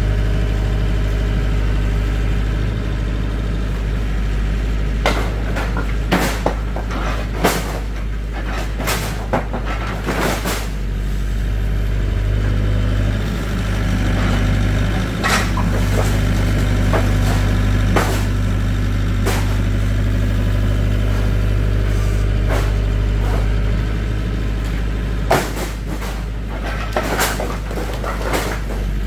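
Engine idling steadily with a low drone, with scattered sharp knocks and clatters over it.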